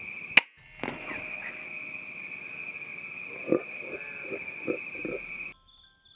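A single sharp air rifle shot about half a second in, then a softer knock about half a second later as the slug strikes. Crickets chirr steadily underneath, and several short low sounds come near the end.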